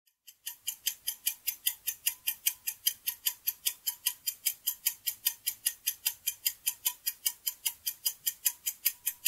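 Clock-ticking sound effect of a quiz countdown timer: rapid, even ticks, about five a second, marking the seconds left to answer.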